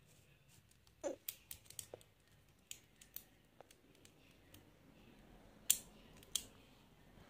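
Small plastic clicks and snaps of a Bakugan toy's hinged panels being folded shut into its ball form: a quick run of clicks about a second in, a few scattered ones, and the two sharpest snaps near the end.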